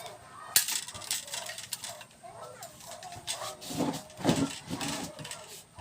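Scattered plastic clicks and knocks from handling a ring light and its stand.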